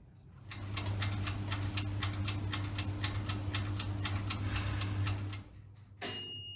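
Toaster oven's clockwork timer ticking about four times a second over a low hum while it toasts bread. The ticking stops and the timer bell dings once about six seconds in, signalling the toast is done.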